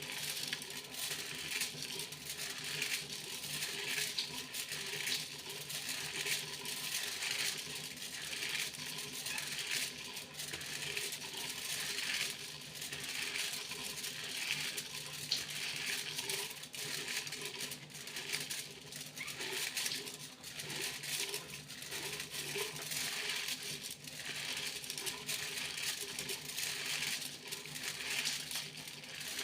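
Aluminium foil being crinkled and rustled by hand: a dense, unbroken crackle of many small sharp clicks.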